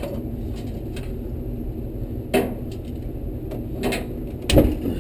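Three sharp knocks and clunks of hand tools working a stuck burner loose from a tankless water heater, the last the loudest, over a steady low hum.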